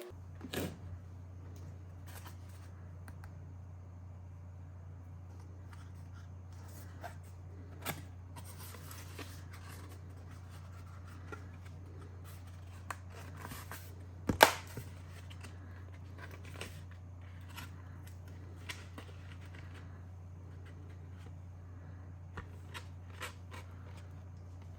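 Hands handling PC parts and packaging: scattered light clicks and rustles, with one sharp knock about fourteen seconds in, over a steady low hum.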